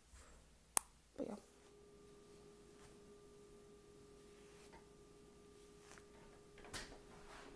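A faint steady hum, one low tone with a fainter higher one above it, starting about a second and a half in. A sharp click comes just before it, and a brief scratchy stroke of a hairbrush through hair comes near the end.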